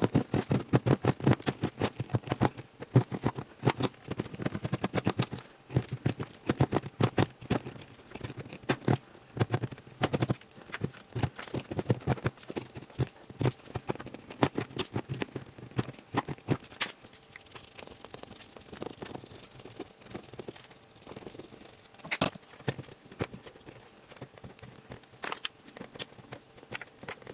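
Small hand tool tapping and scraping at the plaster block of a gemstone excavation kit: a dense run of sharp taps and scrapes, several a second, thinning out to scattered clicks after about 16 seconds.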